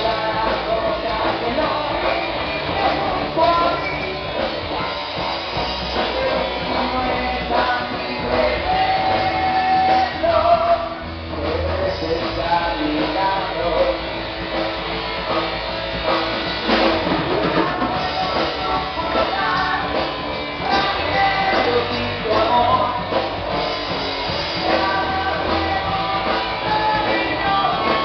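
A rock urbano band playing live: a singer over guitars and drums.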